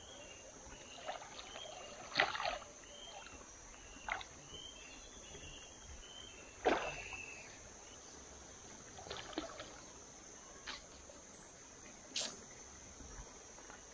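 Short, irregular water splashes and sloshes, about six in all, the loudest about two and about seven seconds in, over a steady high-pitched insect drone.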